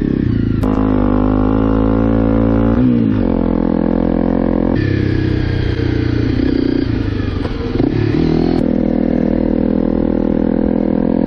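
Trail motorcycle engine running under way, its pitch dipping and rising with the throttle a few times.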